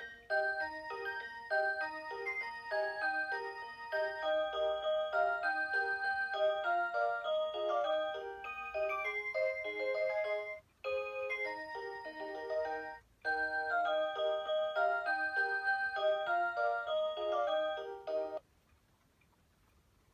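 Rhythm Watch Aria Cantabile alarm clock playing its electronic 'Aurora Sound' alarm melody in bright, bell-like chords, breaking off briefly twice. It stops about two seconds before the end.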